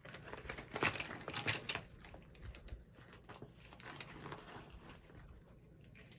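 Small items being handled and set down: a quick run of light clicks and taps with some rustling, busiest in the first two seconds, then fainter scattered handling.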